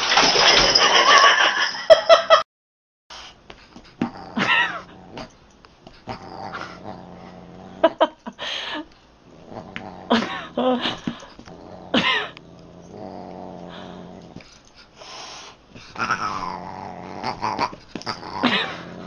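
A cat and a dog scuffling: a loud burst of yowling and scuffle noise that cuts off suddenly after about two seconds. After a short silence come a series of drawn-out yowls and growls, rising and falling in pitch, as a Siamese cat bats at a dog.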